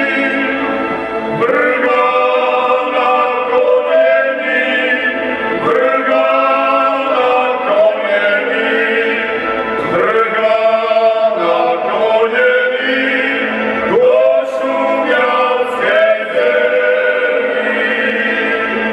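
Folk song sung by a group of male voices together, in short phrases that begin about every two seconds.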